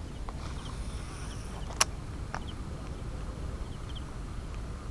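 Steady low rumble of wind on the microphone, with a faint high hiss early on, a single sharp click about two seconds in and a smaller one just after. A few faint high chirps.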